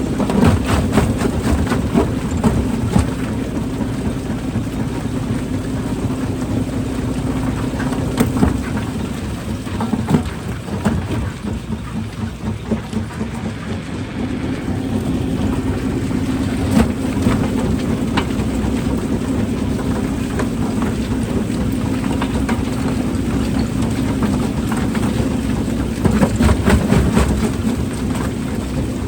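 Rock-crushing machine running with a steady low hum while rocks knock and clatter as they are broken. The hum fades for a few seconds about ten seconds in, then returns.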